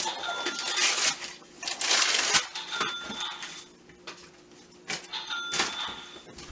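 Wrapping paper and packaging tearing and rustling in several rough rushes as presents are unwrapped, with short high beeping tones about three times.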